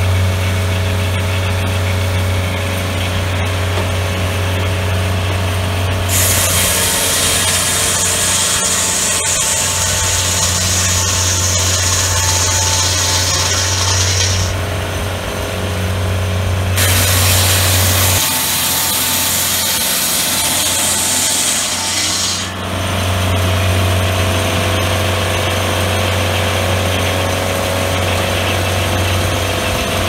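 Engine-driven swing-blade circular sawmill running steadily, its blade cutting through a log in two long passes: one from about six seconds in, another from about seventeen seconds in, each lasting several seconds.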